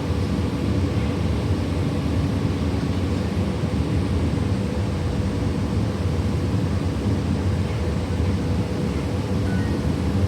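Transit bus driving, heard from inside: a steady drone of engine and road noise with a faint constant hum.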